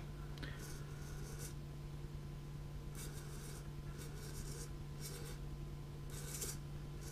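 TowerPro MG946R metal-gear servo motor whirring in several short bursts as the tester's knob moves it back and forth, over a steady low hum.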